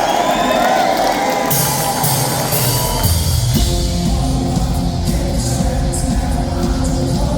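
Live rock band in a hall, loud through the phone's microphone: crowd noise and a held guitar tone at first, then drums and cymbals come in about a second and a half in, and the bass and full band join about two seconds later.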